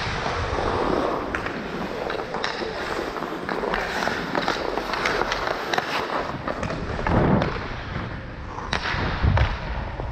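Hockey skates scraping and carving on ice during play, with frequent sharp clacks of sticks and puck and a couple of heavier thumps later on.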